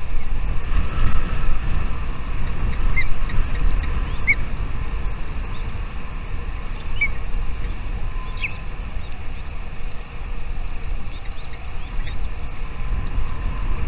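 A bird's short, high chirps, about half a dozen spaced a second or more apart, over a steady low rumble.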